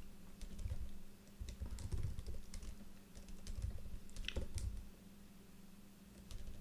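Typing on a computer keyboard: quick keystroke clicks with dull thuds, in three short bursts, then a pause of about a second near the end.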